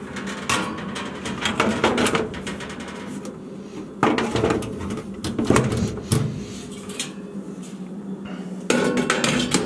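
Sheet-metal furnace access panel being handled and fitted back into place, clattering and knocking in a run of irregular hits, with louder knocks about four seconds in, around the middle and near the end.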